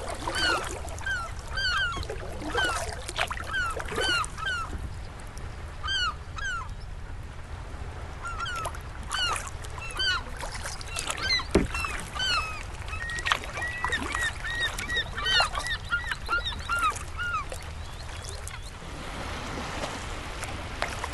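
Many water birds calling from a nesting colony: short, harsh, downward-slurred calls, repeated and overlapping, that thin out near the end.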